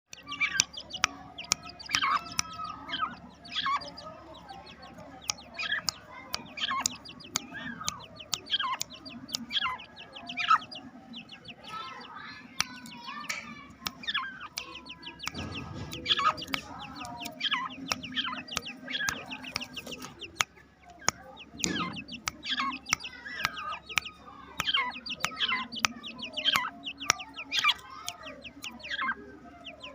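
A group of two-month-old partridge chicks calling, many short sharp calls in quick succession.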